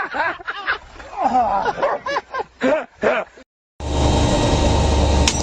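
Voices talking for about three seconds, then an abrupt cut to a steady, loud low droning hum with a noisy rumble, with one sharp click near the end.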